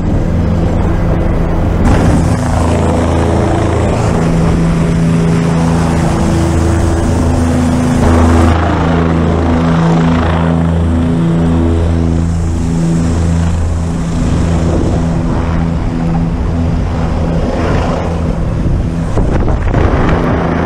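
Helicopter rotor and turbine noise heard from on board and on the rescue hoist: a loud, steady rush with several low humming tones that swell and fade every second or two.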